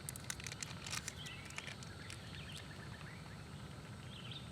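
Small birds chirping in short rising and falling calls, with a few faint clicks and taps in the first second and a half over a low steady background rumble.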